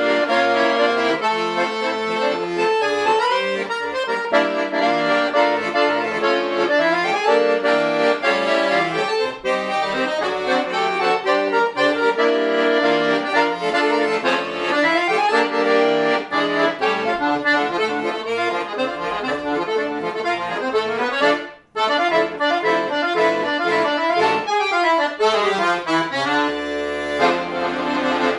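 Accordion playing a lively Italian-style tune in fast running melodic passages, with one sudden brief pause about two-thirds of the way through and a sustained chord with bass near the end.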